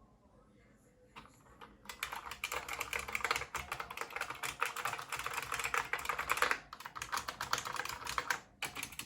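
IBM Model M buckling-spring keyboard being typed on: a few single keystrokes, then fast continuous clicking from about two seconds in, with a short pause near the end.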